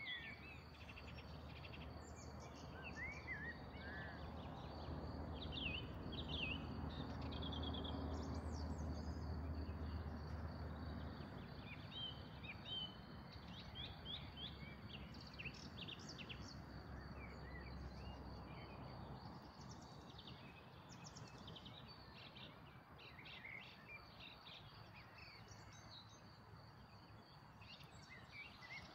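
Small birds chirping and trilling at intervals, faint, over a low rumble that swells and is loudest in the middle before fading, with a thin steady high whine underneath.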